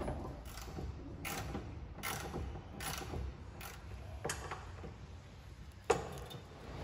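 Hand ratchet clicking in repeated strokes, about one every 0.7 s, as the lower front-bumper mounting bolts are tightened, with one sharper knock near the end.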